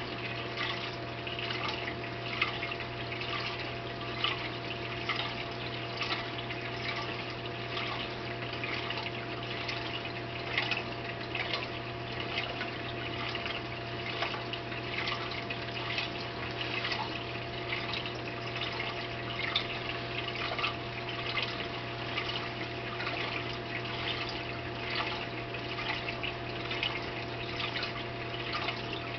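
Oceanic BioCube 29 saltwater aquarium running: a steady pump hum under continuous trickling and bubbling water.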